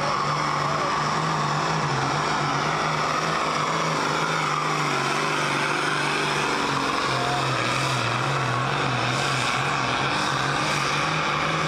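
Diesel engine of a pulling tractor at full throttle, hauling a weight-transfer sled. It is a loud, steady drone whose pitch wavers slightly but holds throughout.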